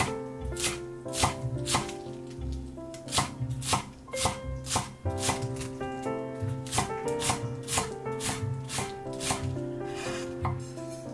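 Kitchen knife chopping turnip greens finely on a wooden cutting board, in sharp, even strokes about two a second, over background music.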